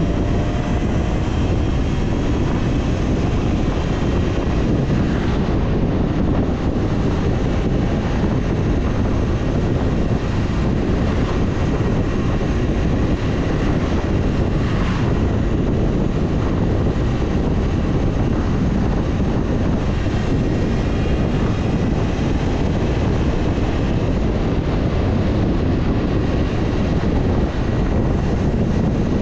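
Wind buffeting the camera's microphone and tyre noise while riding a Talaria Sting R electric dirt bike at speed, a steady roar with a faint high whine from the electric motor.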